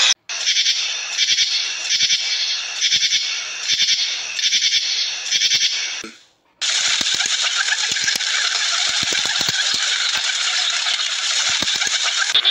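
A feral pigeon flock feeding on grass: a dense crackle of rattling clicks and scuffling with no cooing. It pulses about once a second at first, then breaks off briefly a little after six seconds and returns as a steadier crackle.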